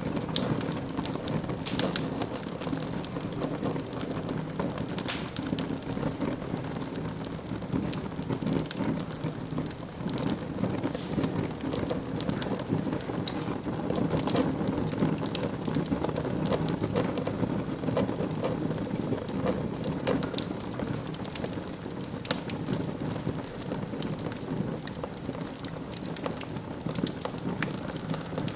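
Wood fire burning in a fireplace: a steady low rumble of flames with frequent crackles and snaps, and a few louder pops.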